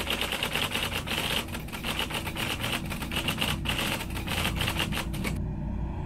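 Typewriter-style typing sound effect: a rapid, uneven run of key clicks that stops suddenly about five seconds in, over a low rumble.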